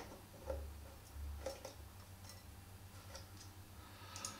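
About half a dozen faint, light clicks and taps, scattered irregularly, of a caliper's jaws against the side plates of a motorcycle chain's freshly pressed connecting link as its width is measured.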